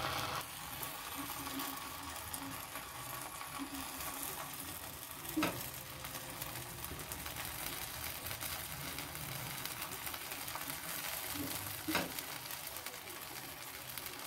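Bread slices toasting in butter on a hot tava, a steady sizzling hiss, while a steel spoon spreads tomato sauce over them. Two sharp clicks stand out, about five and twelve seconds in.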